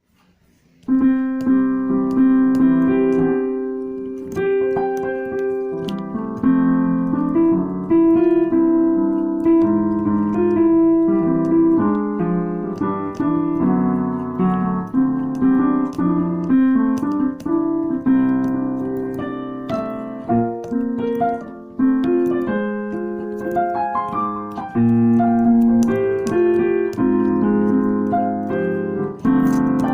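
Piano playing a melody over chords, starting about a second in; each note is struck and then fades.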